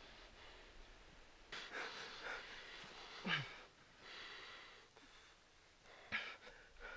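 Heavy breathing from men struggling, with a few sharp gasps and strained exhalations whose pitch drops, one man held pinned to the ground by the other.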